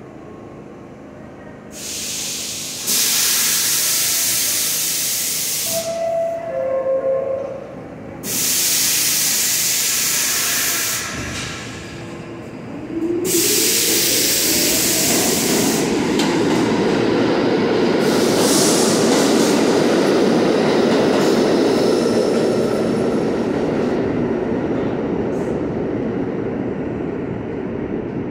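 New York City Subway G train at the platform: three loud bursts of air hiss and a short two-note descending chime about six seconds in. The train then pulls out with a rising motor whine and a steady heavy rumble on the rails.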